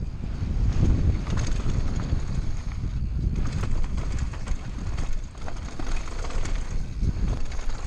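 Wind buffeting the microphone over the rumble of a downhill mountain bike's knobby tyres rolling fast over loose gravel, with scattered clicks and clatter from stones and the bike rattling over the bumps.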